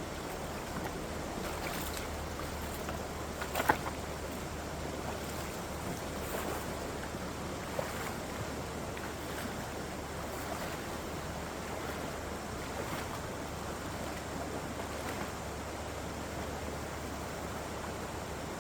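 Steady rush of flowing river water, with a sharp click about four seconds in and a fainter one a few seconds later.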